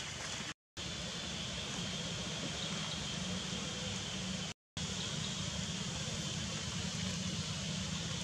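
Steady outdoor background noise with a constant high-pitched tone and a low hum, cut to total silence twice for a moment, about half a second in and again about four and a half seconds in.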